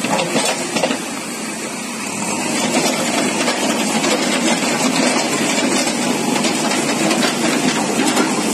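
JCB backhoe loader's diesel engine running steadily, growing a little louder about two seconds in.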